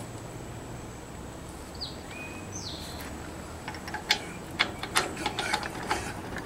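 Sharp, irregular metal clicks and clinks from about halfway in, as a PTO driveshaft yoke is worked by hand onto the hay rake's input shaft. Earlier, a bird chirps a few times.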